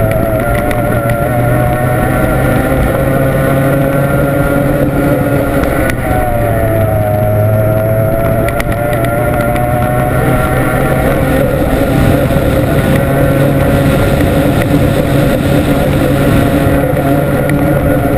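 Formula 1 tunnel boat's outboard racing engine running flat out, heard on board, over rushing wind and water noise. The engine note holds steady, dips briefly about six seconds in, and climbs back.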